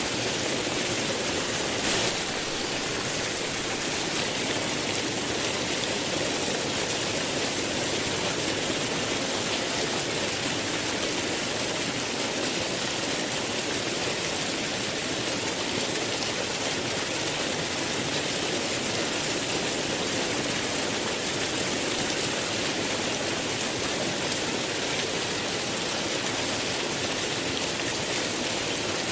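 Flowing water rushing steadily, as from a stream or waterfall, with one brief click about two seconds in.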